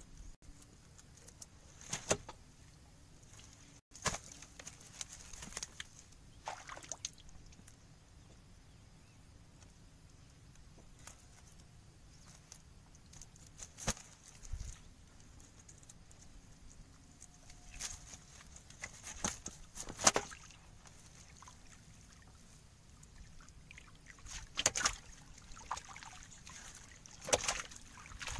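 Wet gill net being hauled into a small wooden boat: water sloshing and dripping, with scattered short sharp knocks and rustles as the net and a large rohu are handled against the hull.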